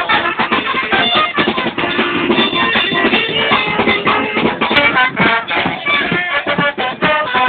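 Charanga street band playing: saxophones and trombones carrying the tune over a steady bass drum and snare beat.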